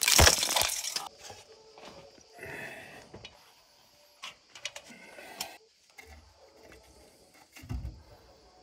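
A short burst of scraping at a rough plaster ceiling as debris falls, then scattered light clicks and knocks of tools being handled, with a dull thump near the end.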